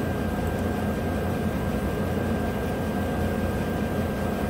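GMC Sierra's 5.3-litre V8 idling with a steady low running sound, with a thin, steady high-pitched tone over it.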